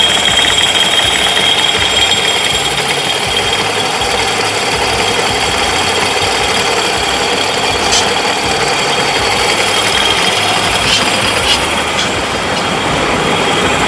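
Welding-electrode factory machinery running steadily: a dense mechanical din with a high whine that fades, and a few sharp clicks near the end.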